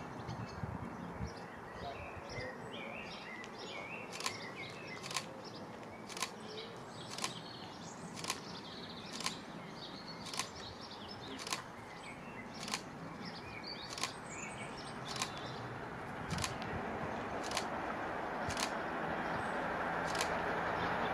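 Birds chirping over steady outdoor background noise, with a sharp click about once a second. From about two thirds of the way in, the rumble of an approaching train rises steadily.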